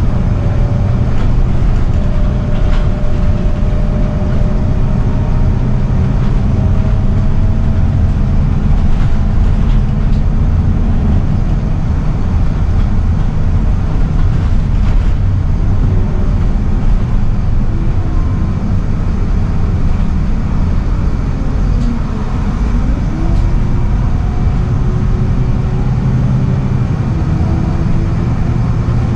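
Scania L94UB bus's rear-mounted five-cylinder diesel engine and drivetrain heard from inside the passenger cabin while driving: a steady low rumble with road noise and a whine that shifts in pitch. About three-quarters of the way through the sound dips briefly, then the whine rises again as the bus picks up speed.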